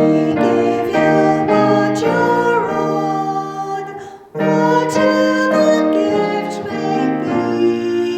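Piano playing a hymn in chords, with a woman's voice singing along. The music breaks off briefly about four seconds in, then carries on.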